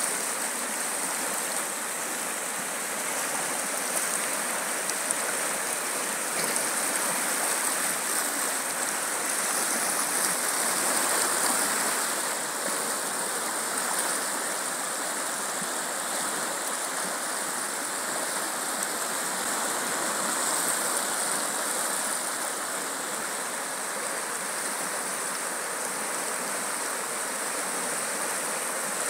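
Muddy floodwater rushing and churning steadily down a creek swollen by heavy rain.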